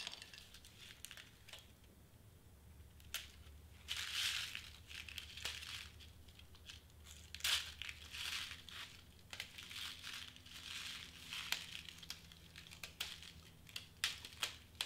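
Craft knife scraping and cutting at tape on a small plastic compartment box of confetti, with brief crinkling rustles and small plastic clicks as the box is handled.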